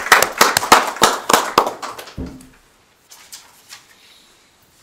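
A small group of people applauding, the hand claps thinning out and stopping about two and a half seconds in.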